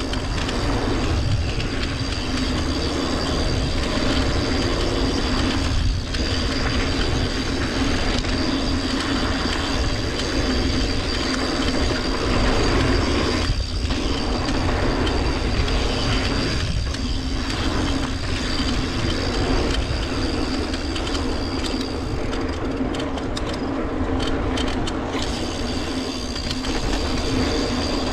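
Yeti SB150 full-suspension mountain bike rolling steadily over dry dirt singletrack: continuous tyre and drivetrain rattle over a low rumble of wind on the microphone.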